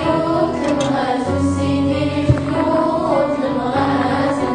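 Background music with voices singing long, gliding notes over a steady lower accompaniment, with one sharp click about two seconds in.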